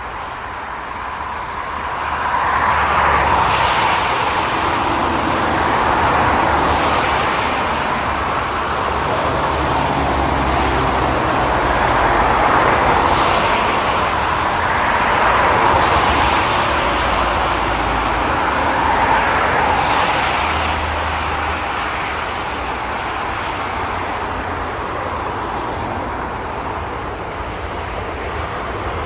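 Rushing vehicle noise with a low rumble beneath, swelling and fading every few seconds like traffic going past, and growing louder again near the end.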